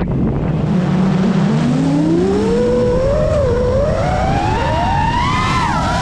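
FPV quadcopter's brushless motors whining. The pitch sits low at first, climbs steadily from about a second and a half in, then swoops down and back up near the end as the throttle changes, over a steady rushing haze.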